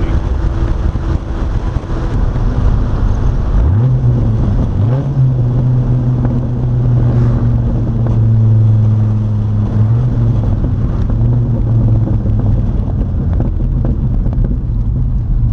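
2006 Dodge Viper SRT-10's 8.3-litre V10 engine running through its side-exit exhaust as the car drives along. The engine note sits low at first, climbs sharply twice around four and five seconds in, then holds steady.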